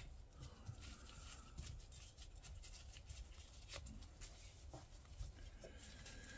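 Near silence with a few faint, short clicks as a hand driver turns the drain screw out of a Honda GL1000 final drive's aluminium housing.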